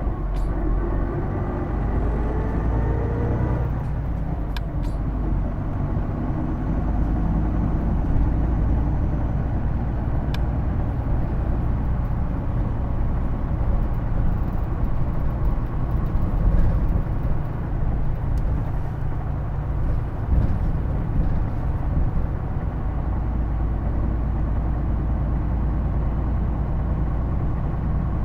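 Hino Blue Ribbon II city bus heard from inside, its diesel engine and drivetrain running with a steady low rumble. In the first few seconds a whine rises in pitch, the bus's distinctive transmission sound, which the uploader likens to an automatic gearbox. A few light clicks come from the cabin.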